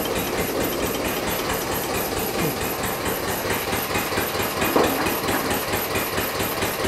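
Hanomag R16 tractor's diesel engine running steadily with an even, rapid beat, and a brief louder sound about five seconds in.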